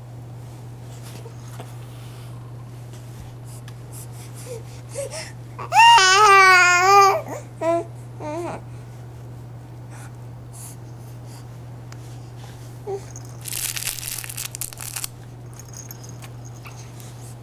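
Baby vocalizing: one loud, wavering coo lasting about a second and a half, starting about six seconds in, followed by two short coos. A brief hiss comes later, over a steady low hum.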